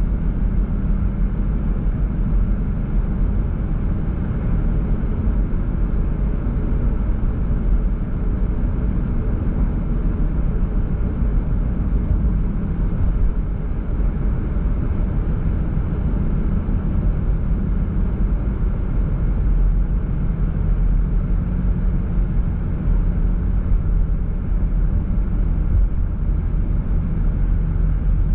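Steady low rumble of a car driving at an even speed: engine and road noise as the car moves along.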